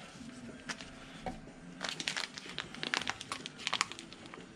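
Nitrile-gloved hands squeezing a foil grease packet and working grease into a CV joint and rubber boot. The crinkling and small clicks come in a busy run, thickest in the second half.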